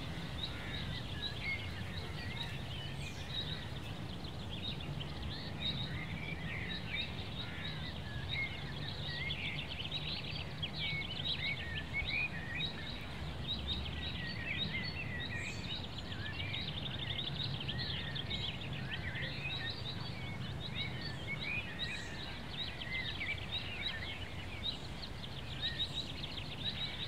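Many small birds chirping and trilling continuously over a low steady hum.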